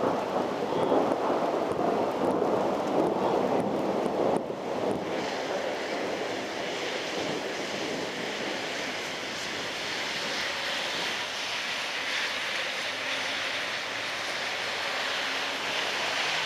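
Thunderstorm wind and heavy rain. A loud, gusty rush of wind on the microphone lasts about four seconds and then drops off suddenly, leaving a steady hiss of downpour.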